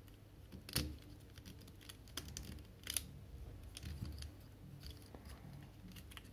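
Small plastic clicks and taps of a Transformers toy (Nightcruz) being handled and its parts moved into place, with two sharper clicks about a second in and about three seconds in.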